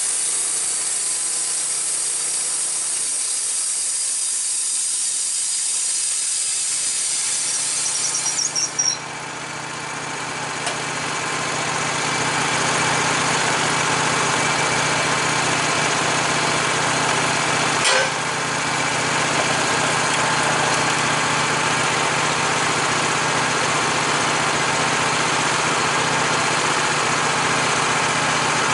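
Wood-Mizer LT15 band sawmill finishing a cut through white oak: the blade's hissing cut fades out with a short squeal about eight seconds in, and the sawmill's gasoline engine then runs steadily. One sharp knock about halfway through.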